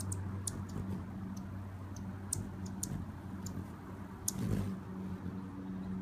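Short, sharp high chip notes of Anna's hummingbirds, scattered irregularly over a steady low hum, with one brief whoosh about four and a half seconds in.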